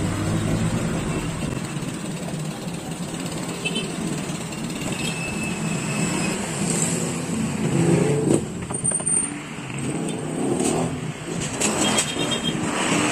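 Motor vehicle engine running, loudest at the start and again about eight seconds in, over a steady street-noise background.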